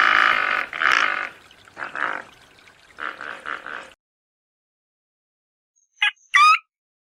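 Animal calls: a run of rough, pulsing calls for about four seconds, then a break, and two short, high, squeaky calls with quick pitch swoops near the end.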